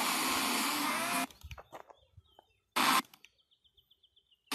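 FM radio receiver hiss from a weak or empty frequency, cutting out about a second in as the tuner steps between stations. A short burst of static follows near the middle, then near silence with a faint high whine before the next station comes in.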